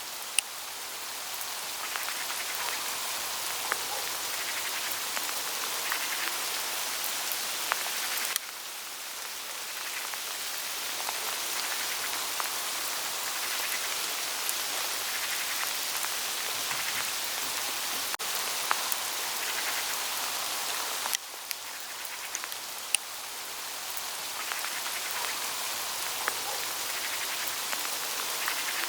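Small hail falling on autumn forest foliage: a steady hiss of many small ticks on the leaves, with a few sharper clicks. The level drops suddenly about eight seconds in and again about twenty-one seconds in, each time building slowly back up.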